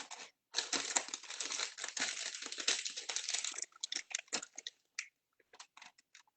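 Plastic crinkling and rustling as it is handled, dense for about three seconds and then in scattered short crackles.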